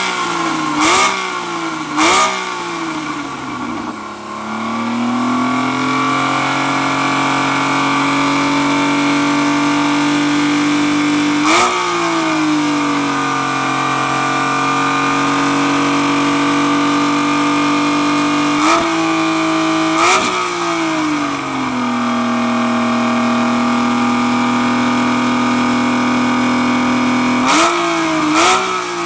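Porsche GT4's flat-six engine running stationary and blipped by the throttle: quick revs with a sharp crack three times in the first couple of seconds, once about a third of the way in, twice around two-thirds through and twice near the end. Between the blips the revs fall back and hold steady.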